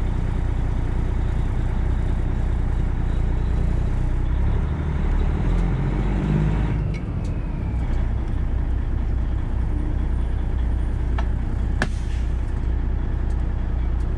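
Straight-piped Freightliner Classic XL truck engine pulling away under load. Its revs climb from about four seconds in, then drop off abruptly about seven seconds in, and the engine runs on steadily. A few sharp clicks come near the end.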